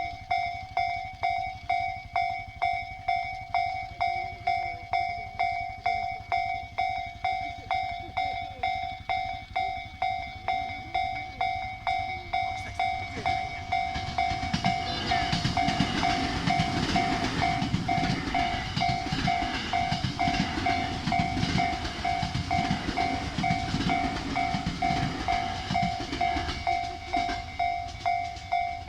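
Japanese railway crossing warning bell ringing in a steady repeating ding. From about halfway in, a train rumbles through the crossing with its wheels clattering, and it fades again near the end.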